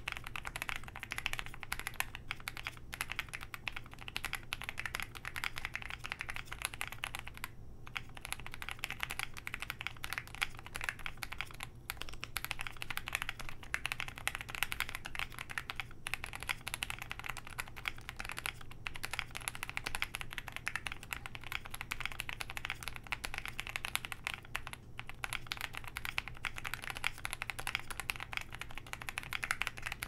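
Continuous fast typing on a Zoom65 mechanical keyboard with lubed Outemu Sky 62g switches on a polycarbonate plate, in a case packed with foam: a dense clatter of keystrokes with a few brief pauses every few seconds.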